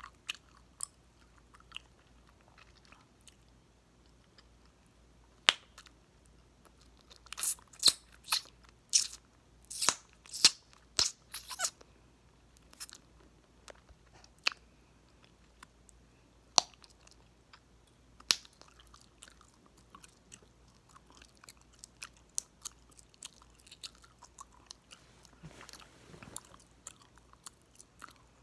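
Close-up mouth sounds of chewing gum, with sharp wet snaps and pops. A quick run of loud pops comes about seven to twelve seconds in, with softer scattered clicks before and after.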